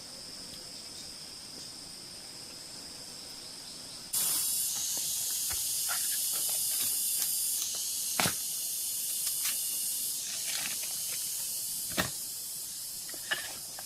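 Steady high chirring of forest insects. About four seconds in, a loud high hiss cuts in suddenly and fades gradually, with a few sharp knocks.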